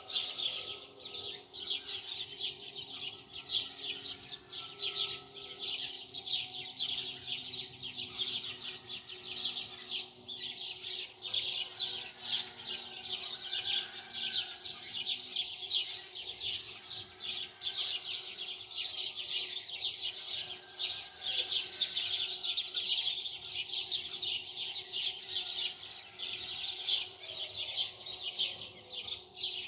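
A dense chorus of small birds chirping rapidly and continuously, with a faint steady hum underneath.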